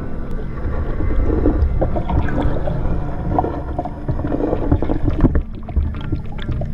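Underwater camera audio: a low steady rumble and hum with water gurgling and sloshing around the housing among swimming bait fish.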